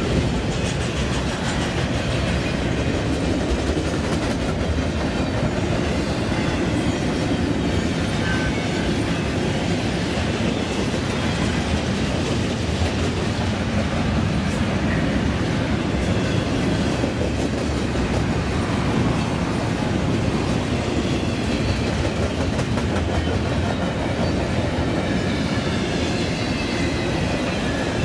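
A train rolling past close by: a steady rumble of wheels on rail with a clickety-clack over the rail joints, and a faint wheel squeal sliding in pitch now and then.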